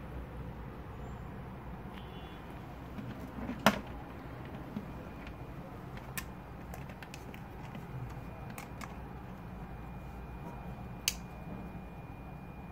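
A few sharp clicks from a cigarette-lighter power plug being handled, one loud about four seconds in, over a steady low hum. A faint steady high whine runs from about five seconds in until near the end.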